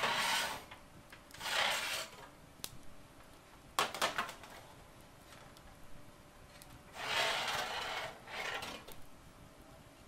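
Oven rack and metal baking tray sliding and scraping as a tray of cookies is pulled out of the oven. There are several short scrapes, with a few sharp metal clanks about four seconds in.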